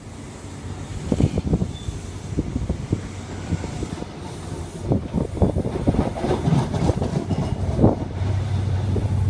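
InterCity 125 High Speed Train's Mark 3 coaches rolling slowly past, wheels clacking and knocking irregularly over rail joints and pointwork. Near the end a steady low diesel drone grows as the rear power car draws close.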